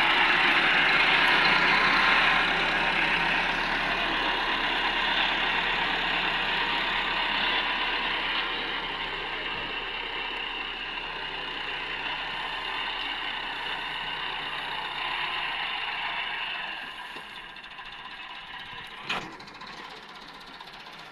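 Tractor engine and wheat threshing machine running, a steady mechanical din that gradually grows fainter and drops off about three-quarters of the way through. A single sharp knock comes near the end.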